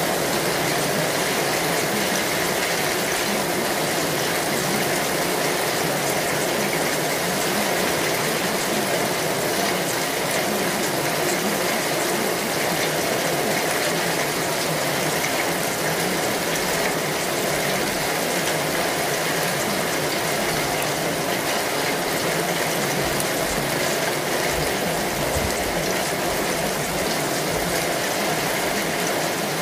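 Steady, unchanging rushing noise like running water, with no beat, melody or voice.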